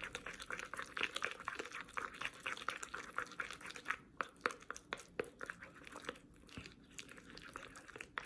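Wooden stick stirring and pressing a wet mass of water-soaked wafer paper (rice paper) in a small bowl: faint, wet squelching with many small crackling clicks. The paper is being worked into an edible glue.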